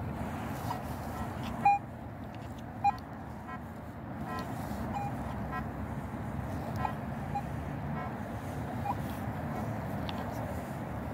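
Metal detector sounding short target beeps as the coil is swept over grass: two loud beeps about a second apart near the start, then fainter scattered beeps through the rest, over a steady low background rumble.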